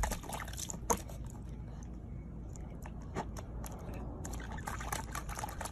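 Corgi puppy splashing and biting at water in a small plastic tub, with irregular splashes, slurps and clicks.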